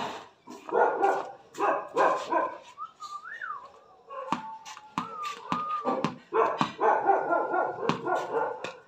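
Dog barking in repeated short barks, with a thin, wavering high whine in the middle, between the bursts of barking.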